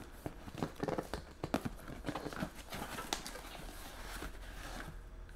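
Corrugated cardboard shipping box being handled and opened by hand: irregular knocks, taps and scrapes as the flaps are pulled and the cardboard is worked, thinning to a softer scraping rustle after about three seconds.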